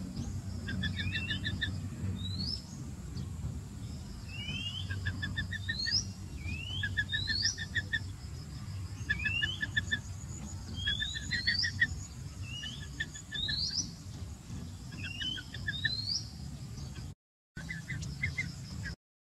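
Bird calls repeated over and over: quick upward-sliding whistled notes about once a second, alternating with short rapid runs of clipped notes, over a steady low rumble. The sound cuts out briefly twice near the end.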